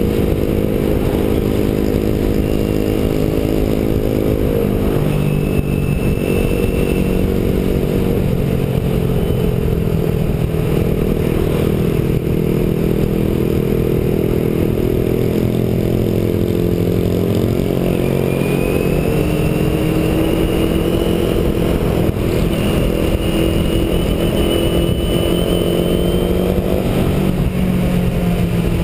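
Motorcycle engine running under way, heard from the ridden bike itself, its pitch stepping and sliding with throttle and gear changes over a steady rush of wind and road noise.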